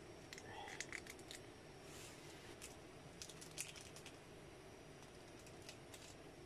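Faint rustling and scattered light clicks as a sachet of whole spices is handled and tipped into a small pot on a camp stove.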